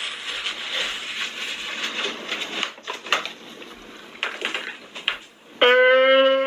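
A man crying: ragged, noisy sounds, then near the end a loud, long, steady wail begins.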